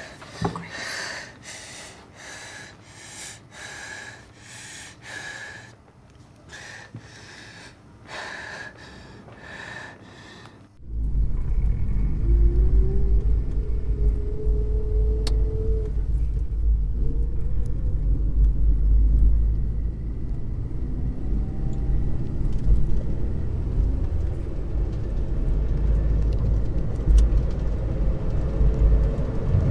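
Rapid, repeated gasping breaths, about two a second. About eleven seconds in, it cuts to the steady low rumble of a car's engine and road noise heard from inside the cabin, the engine note rising for a few seconds as the car gathers speed.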